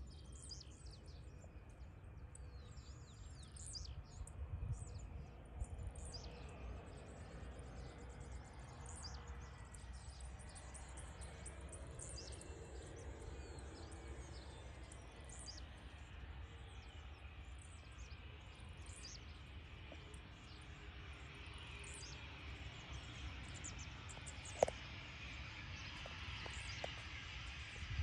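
Many short bird chirps over a low outdoor rumble. In the last several seconds a rising hiss builds as the Embraer Phenom 300 business jet's engines draw near on landing, and a single sharp click sounds near the end.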